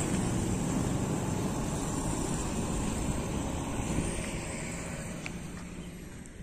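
Steady low rumbling outdoor noise that fades away gradually toward the end.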